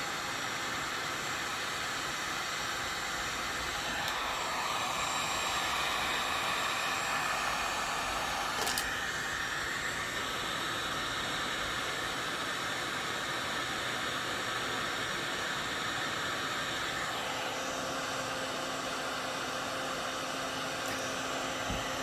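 Small handheld heat gun running steadily, its fan blowing hot air onto a section of half-inch Schedule 40 PVC pipe to soften it until it turns pliable. There is a brief click about nine seconds in.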